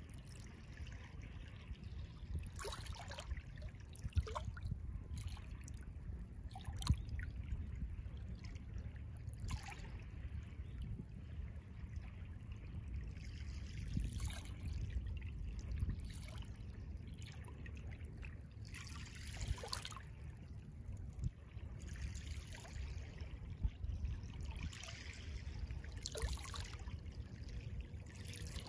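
Small waves lapping and trickling at the edge of a calm sea bay, a soft splash every few seconds over a steady low rumble.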